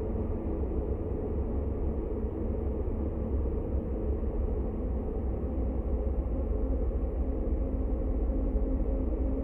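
Dark ambient drone music: a steady, deep rumbling drone with no beat, carrying almost nothing bright on top.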